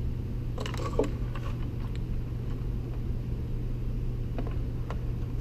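Hands working a car radio unit apart on a bench, with plastic and metal clicks. There is a short cluster of them about a second in and a few faint ticks later, over a steady low hum.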